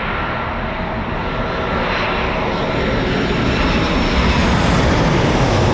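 Jet airliner's engines on short final to land, a steady rushing roar with a faint whine that grows louder as the aircraft closes in.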